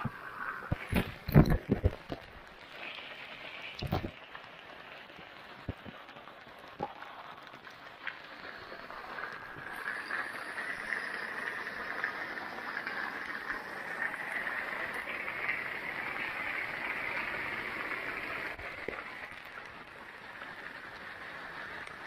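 Heavy rain falling, with a roof spout's jet of water splashing onto the street; the splashing hiss swells about ten seconds in. A few loud thumps in the first two seconds.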